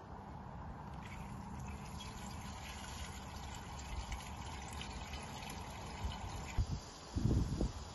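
Water from a garden hose running into a glass vase, filling it, from about a second in until shortly before the end. A short low rumble follows near the end.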